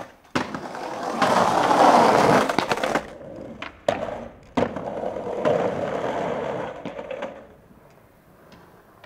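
Skateboard popped onto a stone ledge with sharp clacks, then its metal truck grinding down the ledge in a long scrape lasting a couple of seconds. The same clacks and grind come again at about 4 to 7 seconds.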